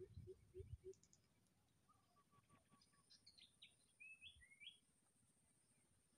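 Faint birds chirping in short notes that glide up and down, with a few soft low taps in the first second.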